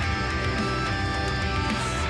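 Guitar-driven rock music with a steady beat and a heavy bass.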